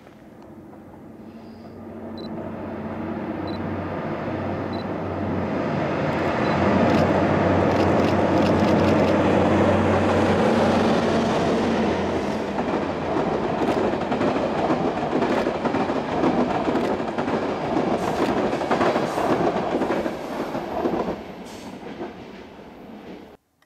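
Passenger train passing over a stone arch viaduct: its running noise swells over the first several seconds with a steady low drone, which drops out about halfway. The wheels then click over rail joints, and the sound fades away shortly before the end.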